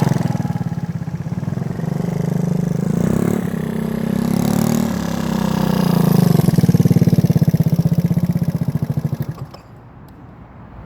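Simulated engine sound effect from the vehicle's sound unit, a pulsing engine note rising and falling in pitch as the throttle is worked, then dropping away about nine and a half seconds in.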